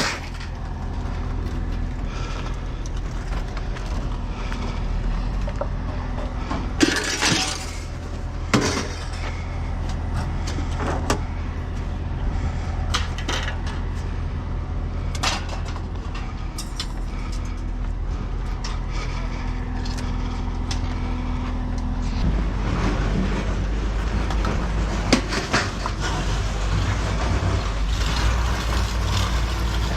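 A steady low engine or machinery hum, growing a little louder about two-thirds of the way through, with scattered sharp clanks and rattles of scrap metal being handled.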